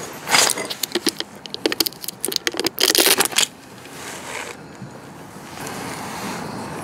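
Hands handling oil-change parts: plastic and metal clicking and rattling in quick bursts for about the first three and a half seconds, busiest around three seconds in, then only a quiet hiss.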